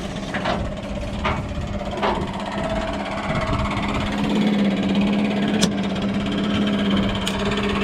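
An engine running steadily with an even hum, with a few sharp metallic clicks and knocks scattered through it.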